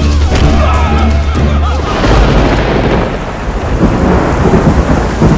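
Background music with a deep held bass gives way about two seconds in to thunder rumbling over heavy, steady rain.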